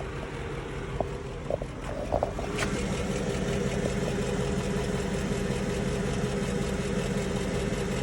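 Mercedes-Benz M113.980 supercharged 5.4-litre V8 running, with ticking that the owner puts down to lifter noise. A sharp click comes about two and a half seconds in, after which the engine note is slightly louder and fuller.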